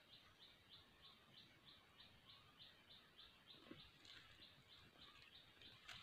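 Near silence, with faint high chirping repeated evenly about five times a second and a soft click near the end.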